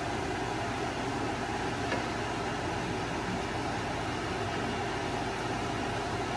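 Over-the-range microwave's vent fan running with a steady whir and low hum, with a light tap about two seconds in.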